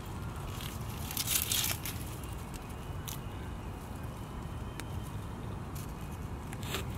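Dry, withered flower stalks crackling and rustling as they are handled and tossed, loudest about a second in, with a few single sharp crackles later, over a steady low rumble.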